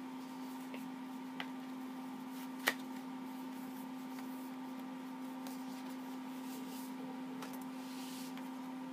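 Light rustling and tapping of thin white card as the iPhone 6's documentation folder is lifted out of its box and opened, with two sharp clicks, the louder about three seconds in, over a steady low hum.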